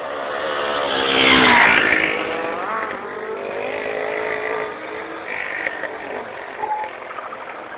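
A car accelerating hard past at speed on a street, its engine revving and loudest about a second and a half in, then fading with the note rising and falling as it pulls away.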